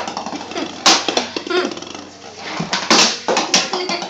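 Sharp knocks of a plastic floorball stick and a hollow plastic floorball striking a wooden floor: one about a second in, then three in quick succession about three seconds in.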